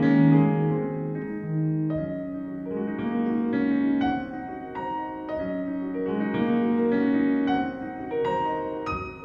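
Piano music, the notes changing about every half second to second.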